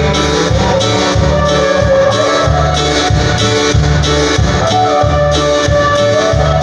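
Live tropical dance band playing loud through a PA. A steady bass beat runs under guitar and melody lines, with no singing.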